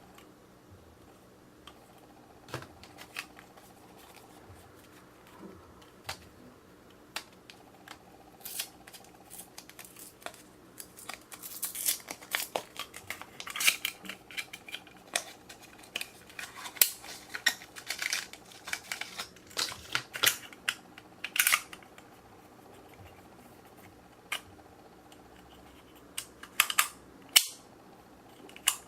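Irregular clicks, taps and crinkles from hands handling small plastic containers and utensils while making gummy pudding, busiest in the middle stretch.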